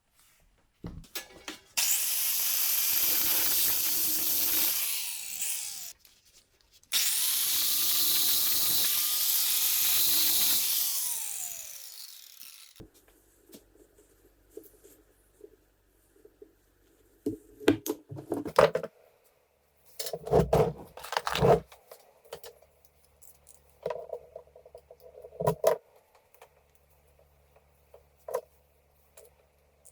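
A power tool runs twice, for about four and then five seconds, its motor winding down after the second run. Then come scattered knocks and clunks, with a faint low hum near the end.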